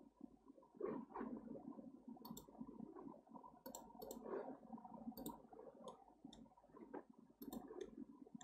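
About ten sharp computer mouse clicks, scattered and some in quick pairs, over faint low room noise.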